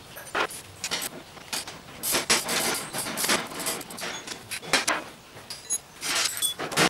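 Irregular clicks, rattles and scrapes of metal and plastic parts as the seat box top panel of a Cub Cadet RZT zero-turn mower is worked loose by hand, with a longer run of scraping about two seconds in.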